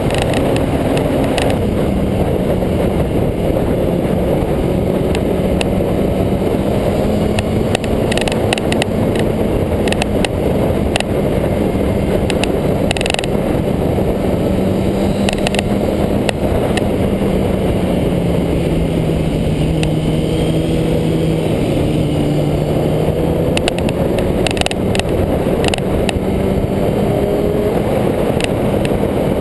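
Motorcycle cruising at speed: a steady engine drone that dips slightly a bit past halfway and then rises again, under heavy wind rush and road noise on the microphone.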